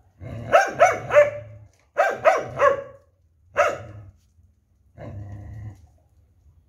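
Dog barking in quick groups: three sharp barks, three more, then a single bark, followed by a quieter, drawn-out growl about five seconds in.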